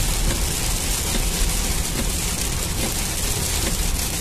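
Heavy rain falling on a moving car's roof and windscreen, heard from inside the cabin as a steady dense hiss over a low rumble of tyres on the wet road.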